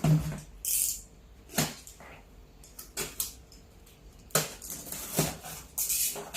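Cardboard packaging being opened and handled: irregular knocks, scrapes and rustles of flaps and paper, with a thump at the start and a brief swish just under a second in.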